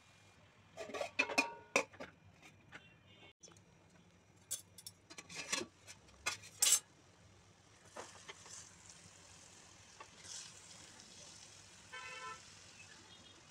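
Utensils clattering and knocking against a stainless-steel kadai in a few quick bursts, then a wooden spatula stirring greens in the pan with a light sizzle. A short horn-like toot sounds near the end.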